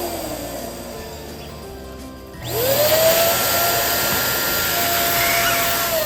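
Electric balloon pump: its motor fades and slows in the first couple of seconds. About two and a half seconds in it switches on again, rising in pitch to a steady hum.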